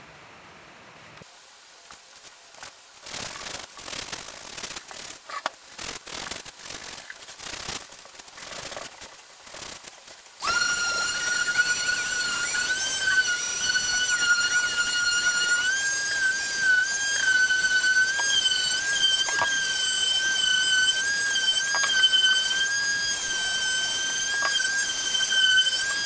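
Electric palm sander running on a wooden cutting board: a loud, steady high whine that starts suddenly about ten seconds in, lifts slightly in pitch partway through, and cuts off at the end. Before it, irregular knocks and rustles of the board and tool being handled.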